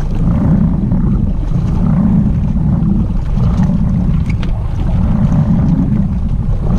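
Small boat at sea: a steady low rumble of engine and water against the hull, with wind buffeting the microphone in gusts.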